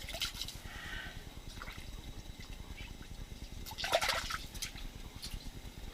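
Water sloshing in an ice-fishing hole, with small clicks of handling and one louder splash about four seconds in, over a steady low rumble.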